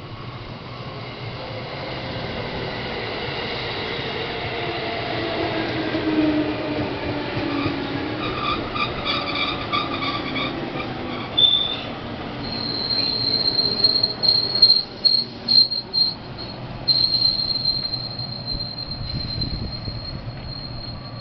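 JR West 221 series electric train braking to a stop: its motor whine falls in several descending tones over the first ten seconds, then a loud, high brake squeal sets in, cutting in and out for a few seconds before holding steady as the train comes to rest.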